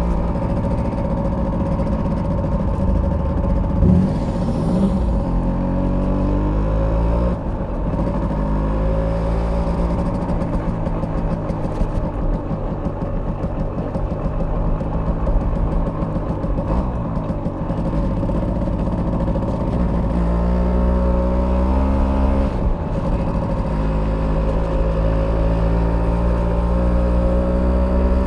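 A Simson S51B moped's 50cc two-stroke single-cylinder engine running under way. Its note drops about seven seconds in and stays lower through the middle, then climbs again near the end after a short break in the note.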